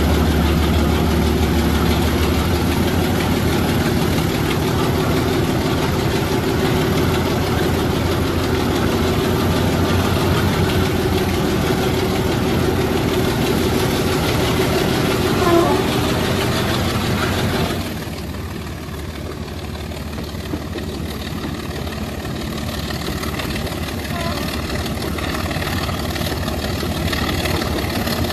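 Class 25 diesel locomotive's Sulzer six-cylinder engine thrashing under load, echoing inside a tunnel, with wheels running on the rails. About two-thirds of the way through, the sound drops and loses its brightness, then slowly builds again.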